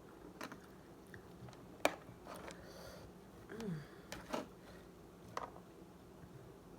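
Close-up eating sounds: scattered wet clicks and smacks of chewing, with a short falling "mm" hum about three and a half seconds in.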